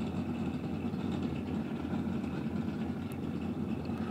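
Steady low buzzing hum of a machine running while soft-vinyl (sofubi) figure blanks are deburred.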